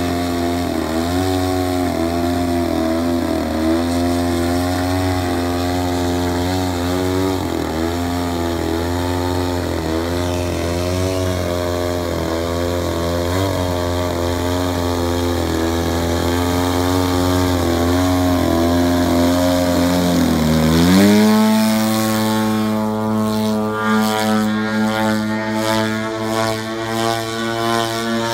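RCGF 120cc gasoline engine and propeller of a Laser 230Z giant-scale RC plane, its pitch wavering up and down as the throttle is worked to hold the plane in a nose-up hover. About twenty seconds in the engine note dips, then rises sharply to a higher steady pitch at full power as the plane pulls out of the hover and climbs away.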